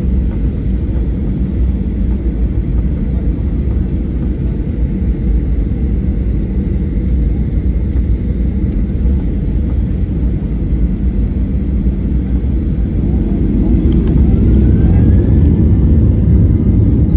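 Boeing 737-800's CFM56 jet engines with airflow, a dense steady low rumble that grows louder about thirteen seconds in, with a faint rising whine.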